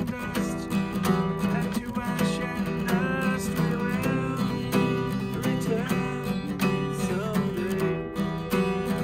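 Acoustic guitar strummed and picked in a continuous, steady passage of chords and single notes.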